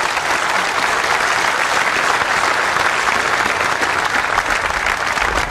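Large audience applauding steadily, a dense unbroken clatter of many hands clapping.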